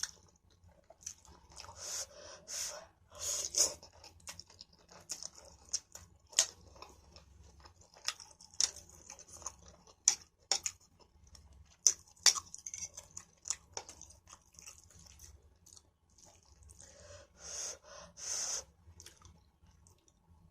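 A person chewing and eating stir-fried noodles, with wet mouth sounds in irregular bursts and a few sharp clicks.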